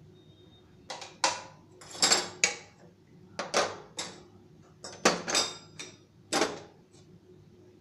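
A metal utensil clinking and scraping against cookware while the payasam is served out into a bowl: about eight sharp clinks and scrapes, some with a brief metallic ring, between about one and six and a half seconds in.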